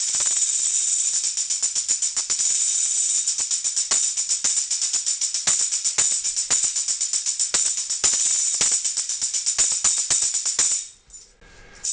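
Meinl composite tambourine with two rows of steel jingles played in a steady, fast rhythm, the jingles ringing with about five strokes a second. The playing stops suddenly near the end.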